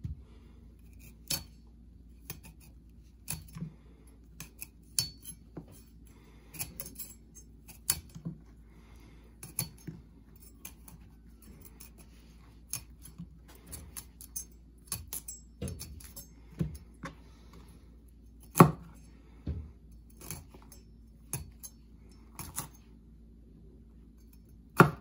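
A chef's knife cutting broccoli florets off the head on a plastic chopping board: irregular sharp knocks of the blade against the board, with two louder strikes, one about two-thirds of the way through and one at the very end.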